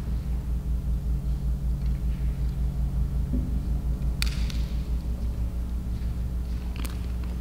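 Low steady hum with a fast throbbing beat, joined by two short sharp clicks, one a little after the middle and one near the end.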